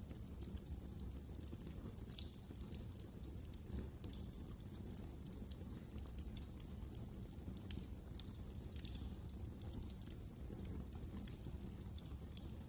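Wood fire burning in a fireplace: irregular small crackles and pops from the logs over a low, steady rumble of the flames.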